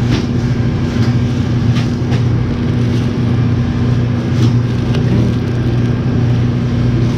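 Steady low machinery hum with a few faint clicks.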